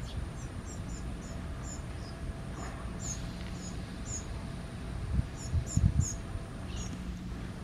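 Blue rock thrush fledgling giving short, high-pitched begging chirps, repeated irregularly about twice a second, as a parent feeds it. A few low thumps around two-thirds of the way through are the loudest sounds.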